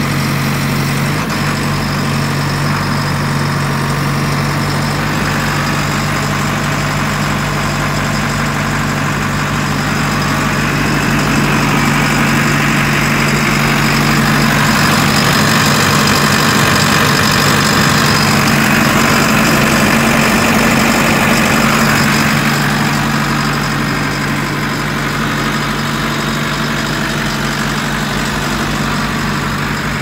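JCB 3CX backhoe loader's 4.4-litre four-cylinder diesel engine idling steadily, heard close up, a little louder for a stretch in the middle.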